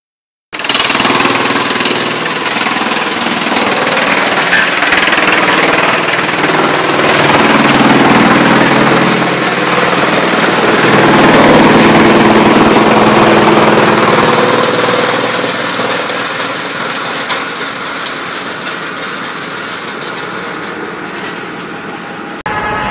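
Wood crusher in a pellet production line grinding scrap wood into shavings: a loud, steady mechanical grinding noise that swells through the middle and eases off later, cut off suddenly just before the end.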